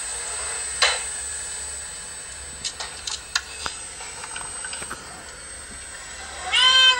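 A cat gives one short, loud meow that bends upward in pitch near the end. Before it there is a steady background hiss with a sharp click and a few light taps.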